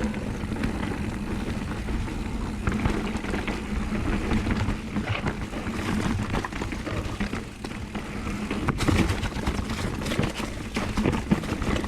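Mountain bike descending fast over a rocky downhill trail: tyres running over rock, with the chain and bike rattling and many sharp knocks from the rough ground, over a steady low rumble of wind on the microphone.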